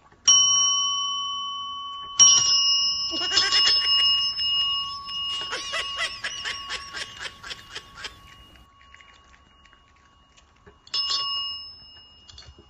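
Chrome desk service bells struck by cats' paws: a clear ding that rings on and fades, another about two seconds in, then a rapid flurry of repeated dings for several seconds, and one more single ding near the end.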